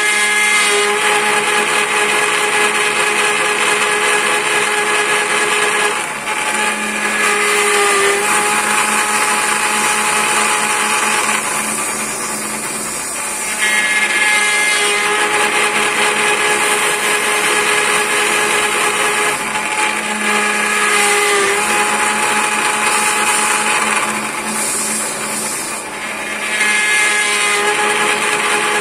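A CNC spindle whines steadily as a spinning end mill cuts a wooden sphere turning on the rotary axis. The cutting noise eases off for a second or two three times during the pass.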